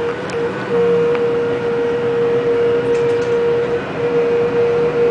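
Detroit People Mover car running along its elevated track, heard from inside the car: a steady electric whine over rolling noise, from its linear induction motor drive.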